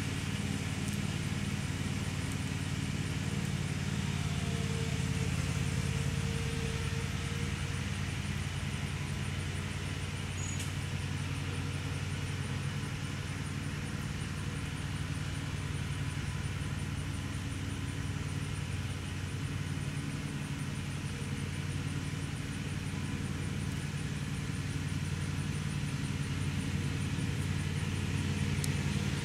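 Steady low mechanical hum of a running motor, unchanging throughout, with a faint fast even ticking high in pitch over it.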